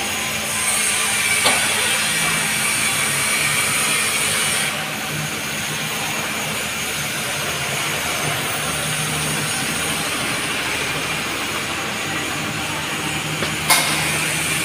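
A bus engine idling steadily, with a sharp click about a second and a half in and another near the end.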